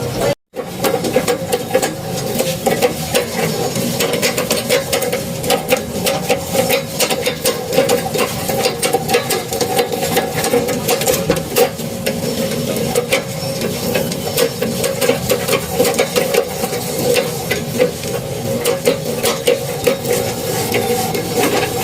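Treadle sewing machine worked steadily by foot, its mechanism clattering and rattling in a dense, irregular run of clicks over a steady hum.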